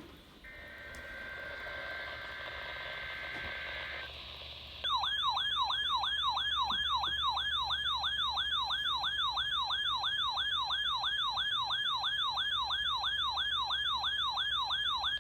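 Weather radio alert: a steady high two-tone data burst, the SAME digital header, for about three and a half seconds. From about five seconds in, a loud warbling siren alarm follows, sweeping up and down about three times a second.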